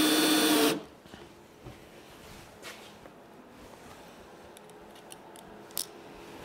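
Cordless drill-driver running steadily as it drives a screw through a plastic Hyfax runner into a plastic sled, stopping abruptly under a second in. After that come a few faint clicks and small rattles as the next screw is fitted onto the bit.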